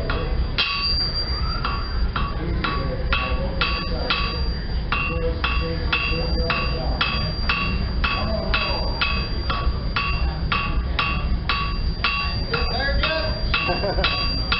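Blacksmith's hammer striking red-hot iron held in tongs on an anvil, in a steady rhythm of about three blows a second. Each blow has a bright metallic ring from the anvil.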